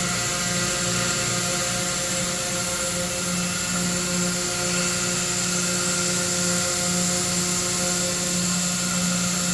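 Two CNC wood routers running at once: a steady whir and whine from the spindles over a constant hum, holding the same level throughout.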